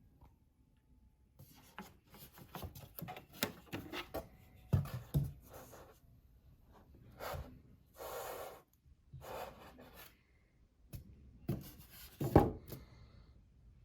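Packaging being handled: rubbing and scraping of cardboard and packing material, with scattered clicks. There is one longer sweeping scrape near the middle and a couple of soft knocks, the loudest near the end.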